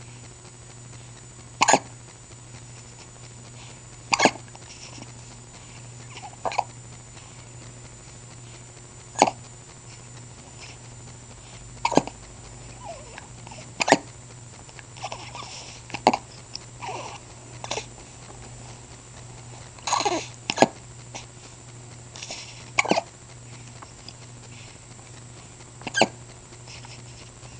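A person hiccuping: about a dozen short, sharp hiccups every two to three seconds, with a steady low hum underneath.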